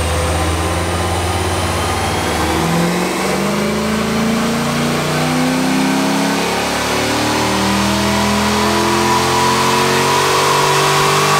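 6-litre LY6 iron-block V8 with an aftermarket cam and long-tube headers on a chassis dyno. It idles with a choppy cam lope for about two seconds, then runs a full-throttle pull with the revs climbing steadily until near the end.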